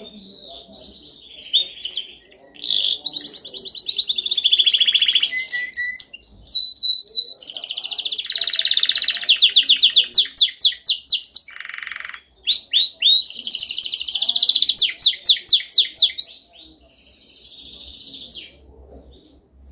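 Domestic canary singing in a song-training recording: fast, rapid trills and chirps, with a short held whistle note a few seconds in and two long, loud rolling trills in the middle, tailing off to softer notes near the end.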